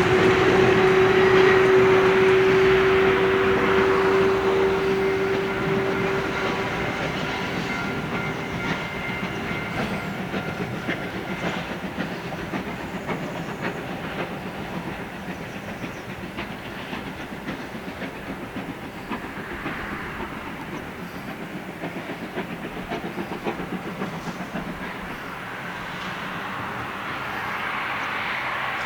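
Oigawa Railway steam express with an old electric helper locomotive at the rear, passing and moving away: wheels clicking over the rail joints, with a steady whine from the electric locomotive's nose-suspended traction motors that fades out over the first several seconds. The train sound then slowly dies away, swelling slightly again near the end.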